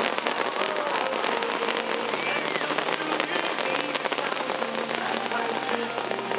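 Fireworks crackling densely: a fast, continuous stream of many small pops, like crackle-effect shells going off together.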